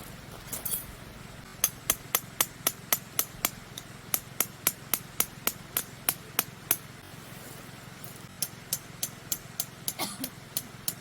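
Tent pegs being hammered into the ground with a peg hammer: two runs of quick, sharp, even strikes at about four a second, with a short pause between them.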